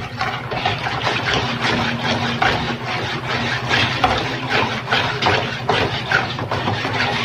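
Wire whisk beating a runny egg-and-sugar batter in a plastic basin: quick rhythmic strokes, about three a second, splashing and rattling against the bowl, while the sugar is worked until it dissolves. A steady low machine hum runs underneath.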